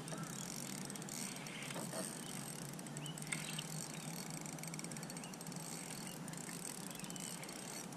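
Spinning fishing reel being wound in steadily, a fast fine ticking from the turning reel as a hooked fish is brought in.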